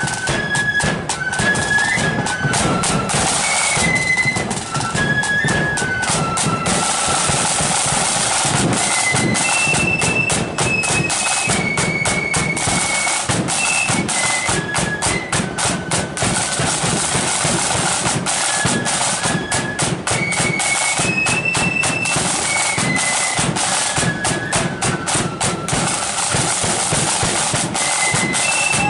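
Marching flute band playing a tune: a high flute melody over continuous rapid drumming with a bass drum.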